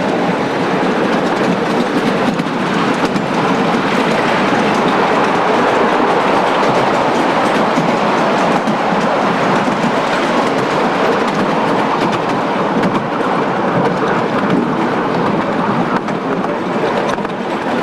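A 7.25 inch gauge ride-on miniature railway train in motion, heard from a passenger carriage: a steady rumble of wheels on the track with scattered light clicks.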